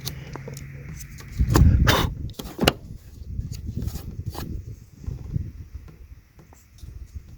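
Hands working on a car tail-light bulb assembly: scattered clicks and knocks of hard plastic parts, with one louder, rougher handling noise about one and a half seconds in.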